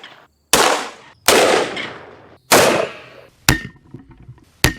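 Five heavy-calibre gunshots, roughly a second apart. The first three have long echoing tails and the last two are shorter and sharper.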